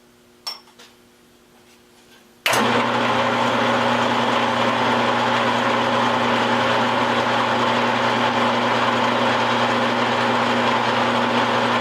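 A light click, then about two and a half seconds in a machine tool's electric motor switches on and runs steadily, a mains-frequency hum under a whirring drive, as the spindle is started for a milling cut.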